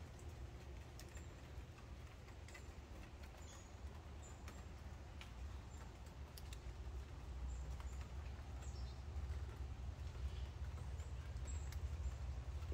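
Faint outdoor garden ambience: a steady low rumble with scattered small clicks and a few brief high chirps, growing a little louder about halfway through.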